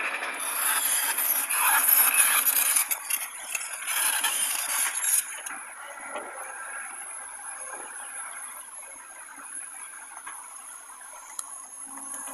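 Heavy construction machinery working, with metal clanking: loud and busy for the first five seconds or so, then a steadier, quieter running noise.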